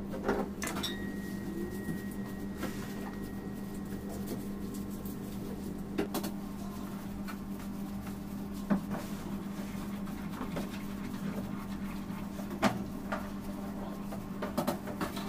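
A steady low hum with scattered light knocks and clicks as a knife, cake board and metal turntable are handled on a kitchen counter.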